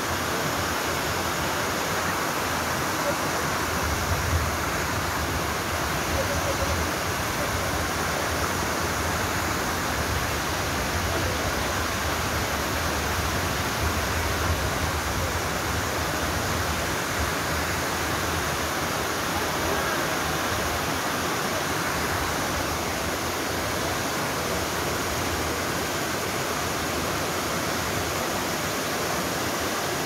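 Steady rush of a small waterfall: water cascading down a natural slide of smooth rock slabs and spilling into a pool.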